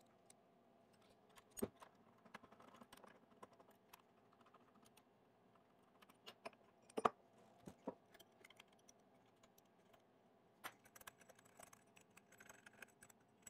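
Faint, scattered metal clicks and taps as a CNC router's spindle motor is unclamped and taken out of its aluminium mount, the sharpest tap about seven seconds in.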